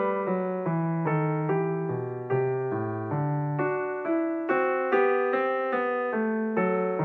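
Piano music: a steady stream of struck notes, each fading away before the next, over lower bass notes.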